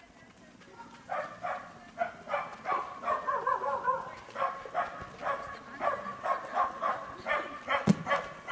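An animal calling over and over in short, pitched yelps, about two to three a second.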